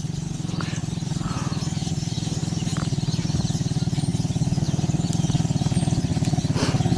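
Motorcycle engine running steadily with an even low pulse, growing gradually louder as it approaches.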